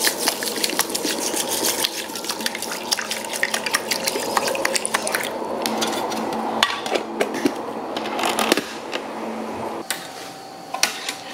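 Water poured from a bottle into an aluminium mess tin of uncooked rice, splashing and swishing over the grains, with many small clicks of rice against the metal. It stops about eight and a half seconds in, leaving a few light clicks near the end.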